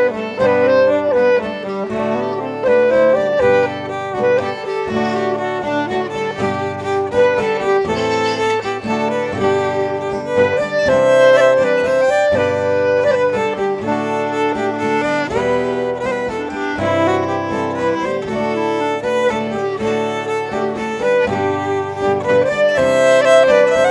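Folk trio playing an instrumental tune live: fiddle and clarinet carrying the melody over a strummed acoustic guitar.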